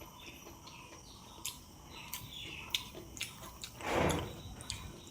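Quiet eating sounds: small mouth clicks from chewing, with faint bird chirps behind and a short, louder rush of noise about four seconds in.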